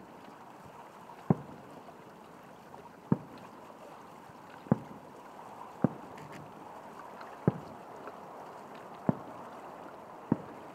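Aerial fireworks heard from a distance: seven sharp booms about one to two seconds apart, over a steady background hiss.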